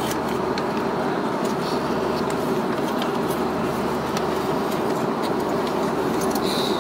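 Steady cabin noise inside an Airbus A340-600 airliner in flight: a constant rush of air and engine drone with a steady hum.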